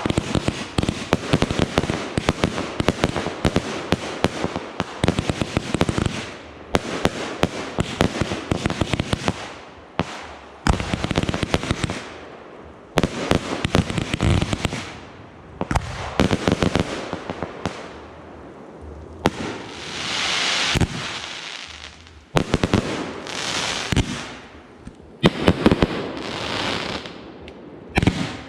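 Fireworks display: rapid strings of bangs and crackles for the first six seconds, then bursts with short gaps between them. In the second half there are a few longer hissing swells among the bangs.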